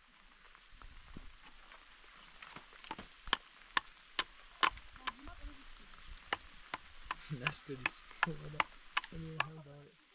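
Hammer tapping hollow concrete blocks as they are laid in mortar: a string of sharp, irregular knocks, about one or two a second. A man's voice is heard briefly near the end.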